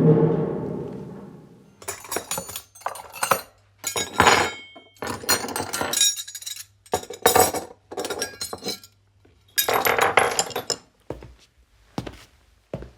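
Short clusters of glassy clinking and rattling, hard small objects knocking together in bursts a second or so long with brief quiet gaps between them. A music cue fades out just before the clinking starts.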